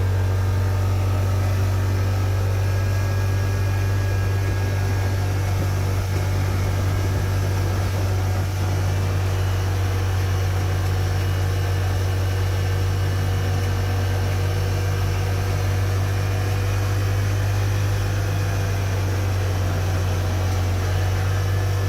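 Yamaha RMAX4 1000 side-by-side under way at a steady speed: its parallel-twin engine and drivetrain give a steady drone. No distinct clank stands out above it.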